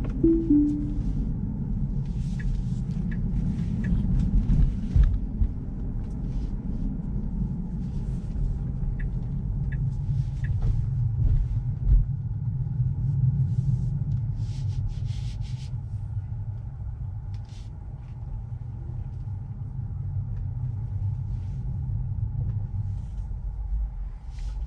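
Tesla Model 3 driving, with a steady low rumble of road and tyre noise. A few sharp knocks stand out, near the start, about five seconds in and about twelve seconds in.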